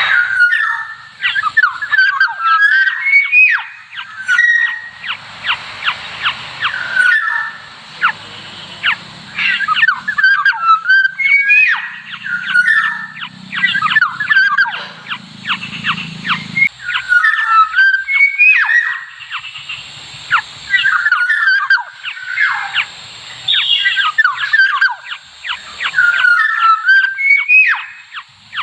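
Black-naped orioles calling: short whistled phrases that bend up and down, repeated every second or two, mixed with rapid sharp clicking notes.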